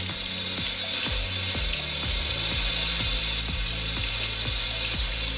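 Kitchen tap running, the water splashing over an onion being rinsed under it, with background music with a steady beat underneath.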